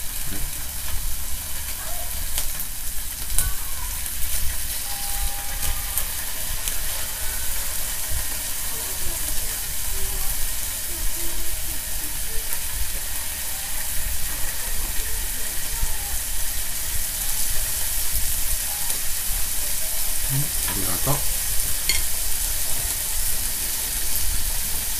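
Eggplant slices and sausages sizzling on an electric hot plate: a steady hiss with scattered small crackles.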